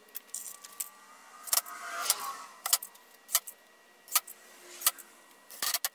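Small metal screws clinking and clicking as they are handled, about a dozen sharp, irregular clicks.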